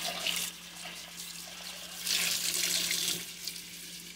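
Kitchen faucet running, the stream splashing into a glass baking dish held under it and spilling down into the sink, louder for about a second in the middle as the water hits the glass more directly.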